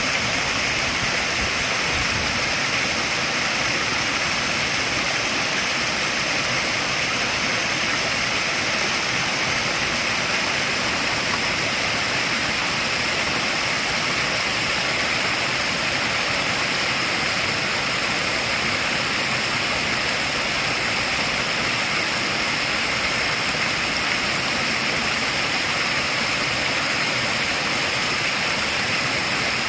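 Small waterfalls spilling over rocks into a koi pond: a steady, unbroken rush of falling and splashing water.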